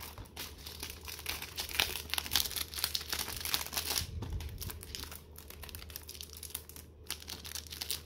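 Plastic shrink wrap on a Blu-ray case crinkling with irregular crackles as fingers pick at it and tear it off.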